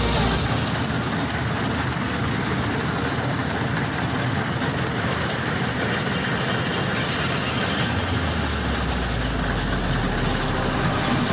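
Combine harvester running steadily: a constant rush of engine and machinery noise, the low hum growing stronger about eight seconds in.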